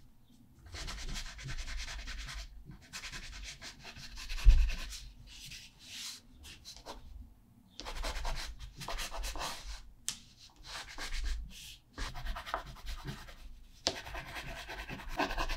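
Water-soluble wax pastel (Caran d'Ache Neocolor II) scratching and rubbing across textured watercolour paper, in runs of strokes broken by short pauses. A single sharp knock about four and a half seconds in is the loudest moment.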